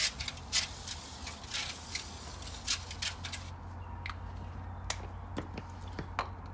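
Aerosol can of PB Blaster penetrating oil hissing in short bursts as it is sprayed onto seized engine rocker shafts. The spraying stops a little over three seconds in, followed by a few light clicks.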